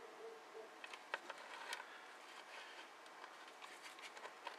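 Faint clicks and taps of multimeter test probes touching the leads of a small desoldered diode, with light handling rustle, as the diode is tested.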